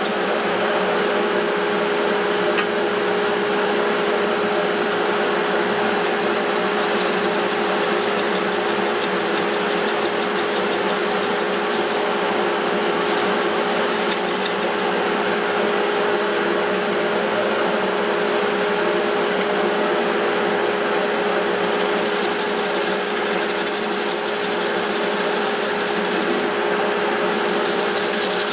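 Wood lathe running steadily with a steady motor hum, over an even hiss of work on the spinning burl.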